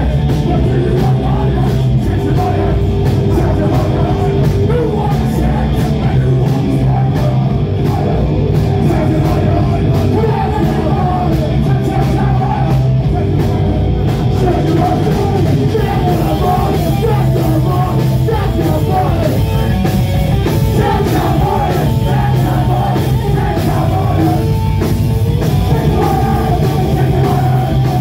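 Punk band playing live and loud: distorted bass and guitar over drums, with shouted vocals.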